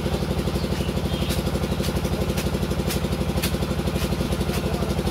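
An engine running steadily at idle with an even throbbing, and a sharp tick about twice a second.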